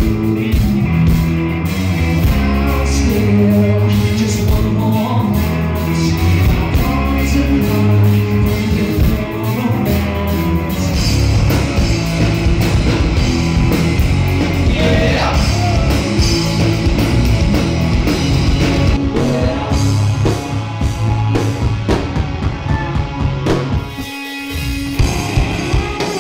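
Rock band playing, with drum kit, electric guitars and a singing voice; the music breaks off briefly near the end.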